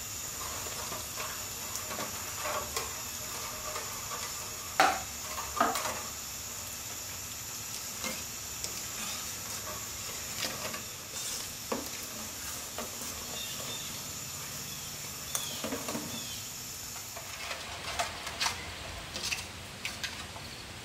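A metal ladle stirring a hot, steaming sauce in an aluminium pot, scraping and knocking against the pot's side now and then over a steady sizzling hiss. The hiss thins near the end, and several quick knocks of the ladle on the pot follow.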